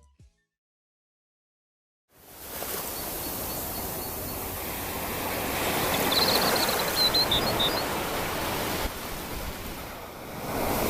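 Ocean surf on a beach: a steady rush of breaking waves that comes in after about two seconds of silence, swells and eases, with a few faint high chirps in the middle.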